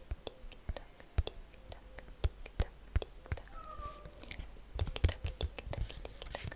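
Fingernails tapping and flicking at a playing card held close to the microphone, giving quick, irregular, crisp clicks.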